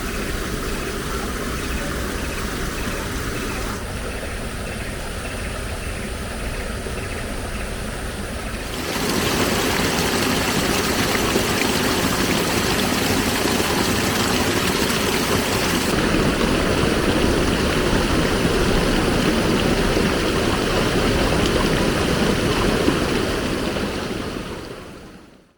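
River water flowing with a steady rushing sound. It gets noticeably louder about nine seconds in, then fades out at the very end.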